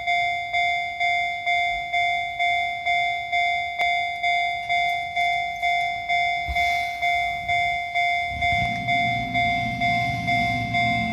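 Railway level crossing warning bell ringing steadily, about two strikes a second. A brief hiss comes about six and a half seconds in. From about eight and a half seconds a low hum of the Hakone Tozan 3000-series train's motors rises under the bell as the train starts to pull away.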